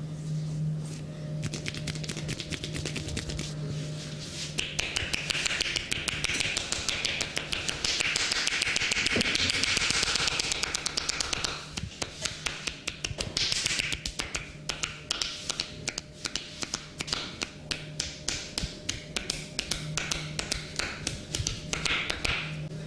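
A barber's hands doing percussive massage, tapping and slapping on the skin in a quick rhythm. The strikes come very fast and dense through the middle, then settle to about four a second.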